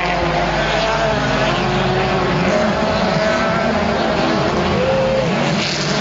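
Racing car engines running hard, more than one at a time, their pitch climbing and dropping in short arcs as they rev and pass.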